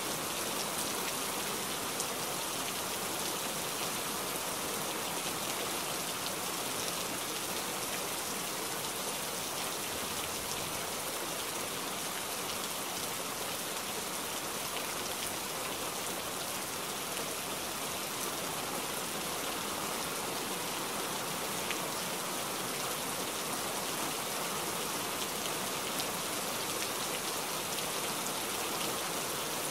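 Steady hiss of rain and fast-flowing muddy floodwater.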